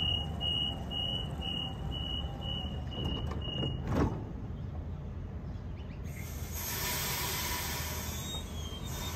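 Door-closing warning on a double-deck suburban electric train: a rapid series of high beeps, about two or three a second, then the doors shut with a thump about four seconds in. From about six seconds a rising hiss as the train starts to pull away.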